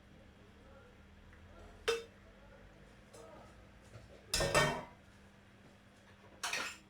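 Kitchen utensils clinking and scraping while fried garlic is strained out of hot oil: one sharp clink about two seconds in, then two louder scraping clatters in the second half.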